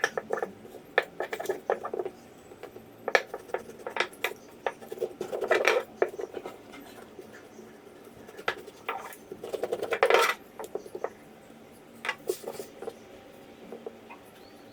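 Kitchen handling noise from shaping bread dough with a rolling pin on a work surface: irregular knocks, taps and scrapes, with two longer rubbing passes about five and a half and ten seconds in.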